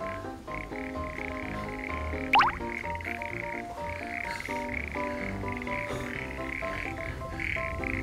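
A chorus of rice-paddy frogs calling continuously, many overlapping short pitched calls. A brief high squeal rises sharply about two and a half seconds in.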